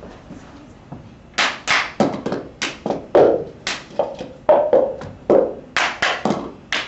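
A cup game: two people clap their hands and rap cups on the floor in a quick, repeating rhythm of sharp taps and claps, starting about a second and a half in.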